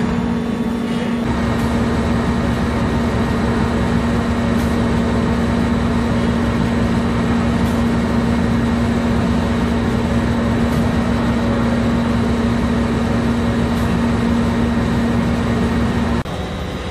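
Rotary friction welding machine running with a steel pipe spinning in it: a loud, steady machine hum with a strong constant tone. It grows noisier about a second in and drops off suddenly near the end.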